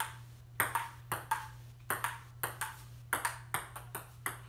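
Table tennis rally: the ball clicking sharply off the table and the paddles in a quick, even back-and-forth, about three to four ticks a second, often in close pairs of bounce and hit. A steady low hum runs underneath.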